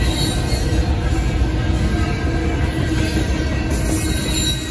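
Railroad crossing bells ringing steadily over the low rumble of a Union Pacific double-stack intermodal train's container cars rolling through the crossing.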